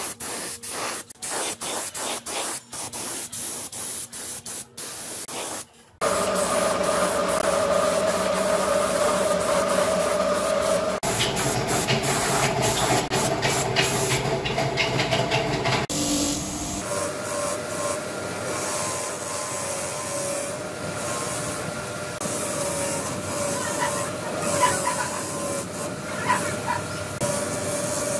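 Paint spraying in short hissing bursts, then in longer steady passes. About two-thirds of the way in, this gives way to a bench grinder's wheel spinning with a steady hum, with a few brief scrapes as a small bolt is held to it.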